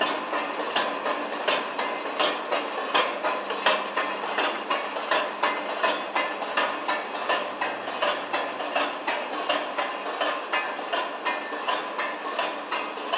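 Bucket conveyor running: an even, rhythmic clatter of about three clacks a second over a steady mechanical hum.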